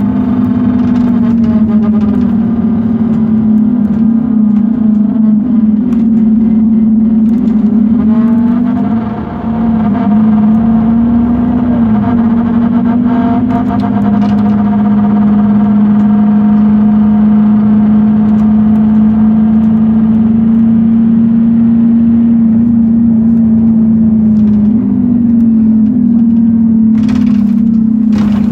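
Loud, steady droning hum inside a Scania K230UB city bus, with higher engine and drivetrain tones sliding down and back up partway through. The hum is the noise of a fault in the bus that the owner cannot diagnose.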